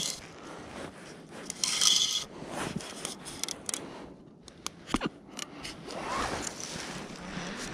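Hands handling a plastic pike-fishing float (kruzhok) and its line, with scraping and rustling. The loudest rustle comes about two seconds in, followed by a run of short sharp clicks around the middle.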